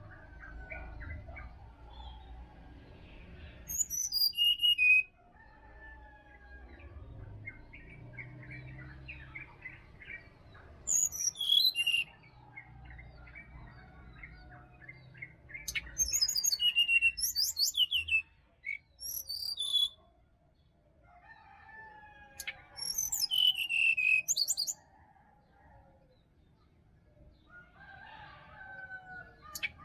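Brown-chested jungle flycatcher singing phrases of high, quick notes with pauses of a few seconds between them. Softer calls of other birds sound under it, with a low rumble during the first half.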